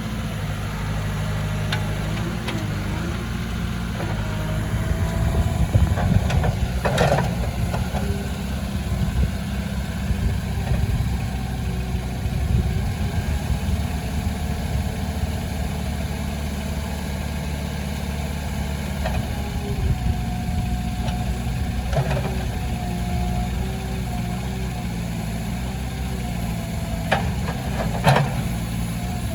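Diesel engine of a JCB 3DX loader backhoe idling steadily, broken by a few sharp knocks, once about a third of the way in, once about three quarters through and twice near the end.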